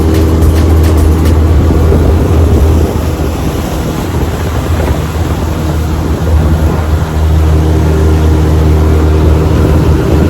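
Motorboat engine running steadily under way, a low hum over a constant rush of noise. The hum weakens for a few seconds in the middle, then comes back.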